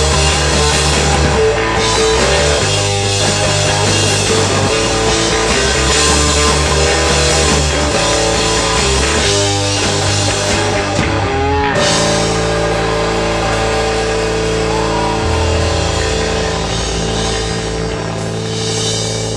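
A rock band playing live, with guitar and drums. About twelve seconds in, the shifting bass line gives way to long held chords.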